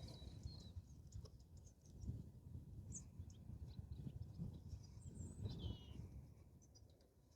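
Faint, short bird chirps, one falling in pitch about five and a half seconds in, over low rustling and light handling knocks.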